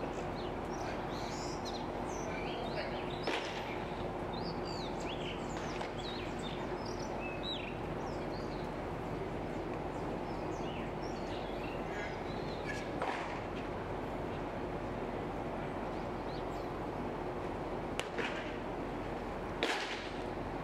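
Small birds chirping over a steady outdoor background hum, busiest in the first half. A few sharp cracks or knocks stand out, one early and three in the second half.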